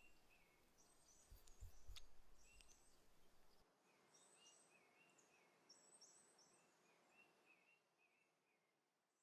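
Faint forest ambience: small birds chirping in short, repeated calls over a soft hiss. A low rumble with a few clicks stops suddenly about three and a half seconds in, and the ambience fades out near the end.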